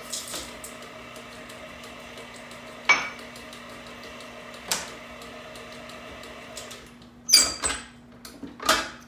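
White tilt-head stand mixer running steadily as it mixes cookie dough, with a few sharp clicks as mini chocolate chips go into the metal bowl. Near the end the motor stops and there are loud metal clanks as the mixer is handled.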